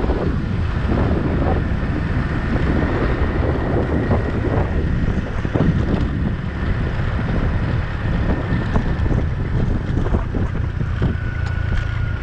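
Wind buffeting the microphone on a moving motor scooter, gusting and rushing, with the scooter's small engine running steadily underneath.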